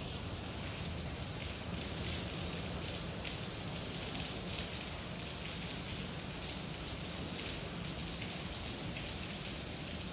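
Steady rain falling, with many small drop hits throughout.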